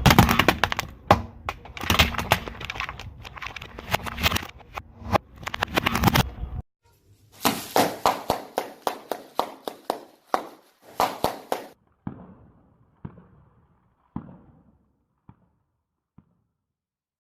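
Crunching and cracking of brittle things being crushed under a car tyre, a dense run of snaps that cuts off and starts again about a second later, then thins out into scattered crackles that die away.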